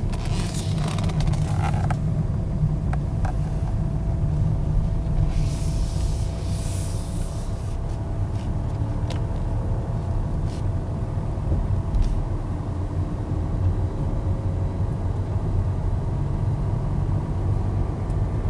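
Jaguar XE's 2.0-litre four-cylinder turbodiesel engine (180 hp) running steadily with road rumble while the car drives slowly, heard from inside the cabin, with brief bursts of hiss near the start and again about five to eight seconds in.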